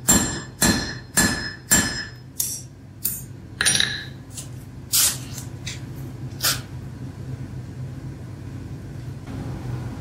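Hand hammer striking hot iron on an anvil to cut the bar off: a run of sharp, ringing metal-on-metal blows, about two a second, then slower, with the last blow about six and a half seconds in.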